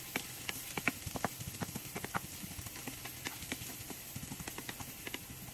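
Chopped onion, scallion and sweet pepper sautéing in hot olive oil in a frying pan, a faint steady sizzle, while a wooden spoon stirs them, knocking and scraping against the pan in a run of irregular light taps, a few each second.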